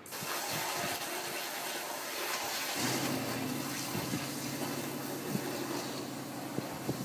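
A steady rushing hiss, and from about three seconds in the 1990 Subaru Legacy's flat-four engine starting and idling with a steady low hum.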